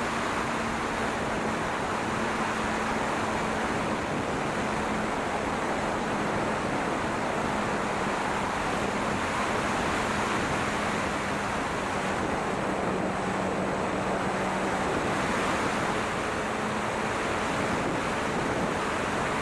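Loud, steady wind rush over an onboard microphone on an E-flite P-47 electric RC model plane in flight, with a faint steady hum from its motor and propeller that shifts slightly in pitch.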